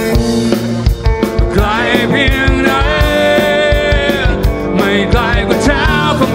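Live rock band playing: a drum kit keeps a steady beat under electric guitars and bass. A man starts singing about a second and a half in, holding a long note before a short break and another sung phrase.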